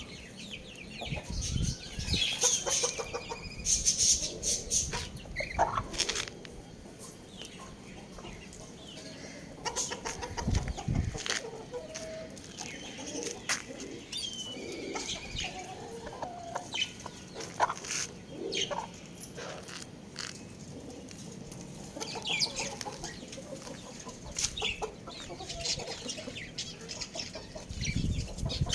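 Young roosters clucking and giving short calls, mixed with frequent sharp clicks and knocks and a few low thumps.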